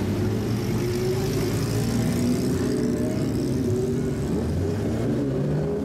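Lowered Nissan Skyline C10 sedan's engine and exhaust running at low revs as it pulls out and drives slowly past, the note rising and falling slightly in pitch.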